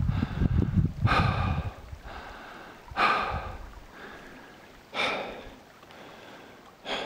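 A person breathing hard, with four loud gasping breaths about two seconds apart, each fading away. Over the first two seconds there is a low rumble underneath.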